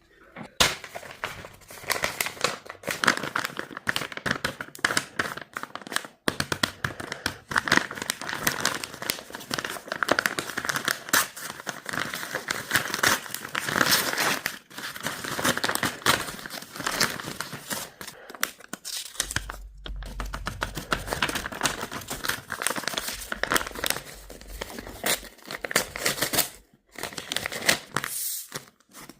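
Plastic blind-bag packaging crinkling and tearing as it is handled and opened, in dense irregular crackles.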